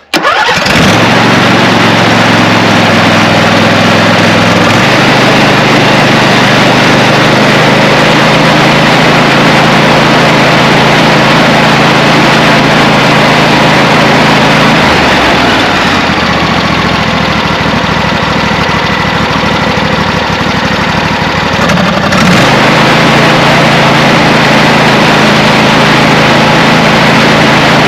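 24 hp Briggs & Stratton V-twin engine on a Craftsman lawn tractor catching right away and running steadily, with a change in engine speed for several seconds around the middle before settling back. It is running on its freshly rebuilt carburetor, which the owner judges all right.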